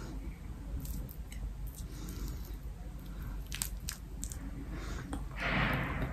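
Small sharp clicks and soft scraping of dry clay cookie pieces against a ceramic bowl and through thick clay paste, then a louder noisy crunch near the end as a piece reaches the mouth.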